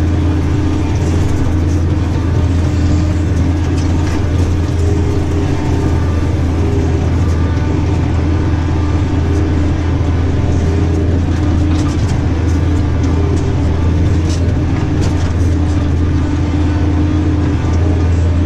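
New Holland tractor engine running steadily with a low drone, heard from inside the cab while driving. Scattered sharp clicks come through over the drone.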